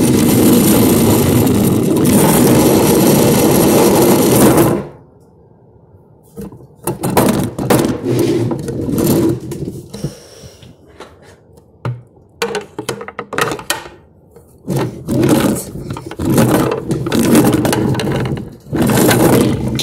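Loud rubbing and scraping noise close to the microphone that stops abruptly about five seconds in, followed by irregular short scrapes and rattles.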